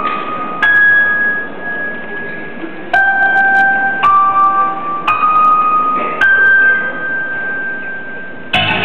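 Recorded music for a dance routine playing through a hall sound system: a slow intro of single high keyboard notes, each struck and held until the next, about five in all, with the full track coming in right at the end.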